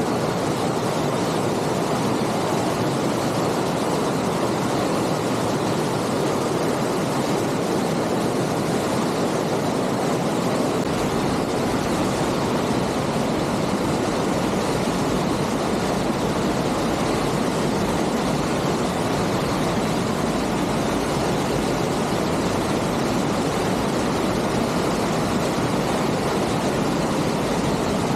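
Aira Force waterfall rushing: a steady, dense wash of falling water at an even level, with a little more low rumble from about eleven seconds in.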